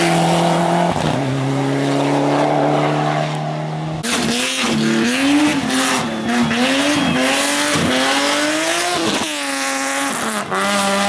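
Hill-climb race car engines at full throttle. First a steady high engine note that steps down in pitch after about a second; then, abruptly about four seconds in, another engine note rising and falling quickly through gear changes and lifts, with a long falling sweep near the end.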